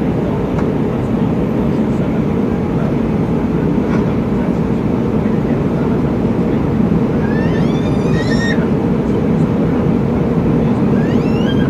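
Steady roar of an Airbus A319 in flight, engine and airflow noise, as heard inside the cabin. A short high-pitched rising sound comes through about seven seconds in and again near the end.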